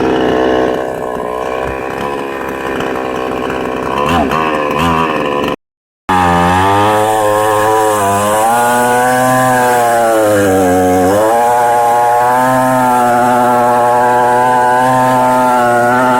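Chainsaw running at high revs while cutting wood, its engine pitch sagging and recovering several times as the chain bites into the cut. It cuts out briefly about five and a half seconds in.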